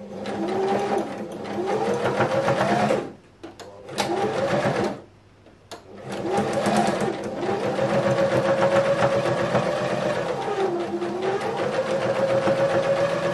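Electric sewing machine stitching in three runs. Its motor whine rises and falls in pitch as it speeds up and slows down, with short stops about three and five seconds in.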